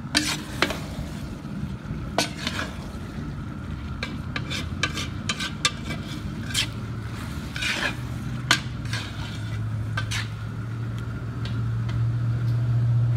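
Long metal paddle scraping and clacking against the inside of a large pot as sausage, chicken and browned onions are stirred, with sizzling beneath. A low steady hum swells in over the last few seconds.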